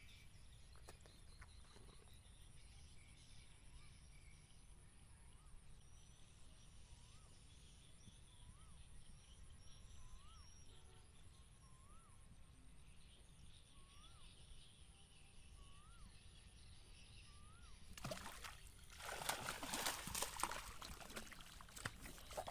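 Quiet outdoor background with a faint short rising-and-falling call repeated about every second and a half, then near the end loud splashing as a hooked fish thrashes at the water surface while it is hauled in on a bamboo rod.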